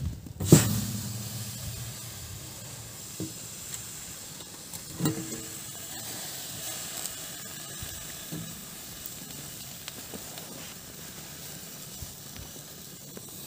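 Metal lid of a steel sterilizer used as a smoker clanks as it is lifted off about half a second in, then the hot smoker gives off a steady sizzling hiss. Another metal knock with a brief ring comes about five seconds in.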